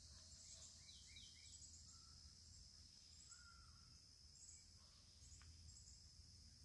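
Faint outdoor insect chorus: a steady high hiss with short chirps repeating throughout. A few faint bird chirps come about a second in.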